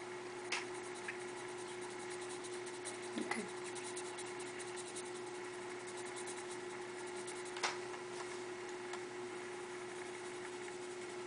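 Red colored pencil scratching on paper in quick short strokes, with a few sharper taps, over a steady faint hum.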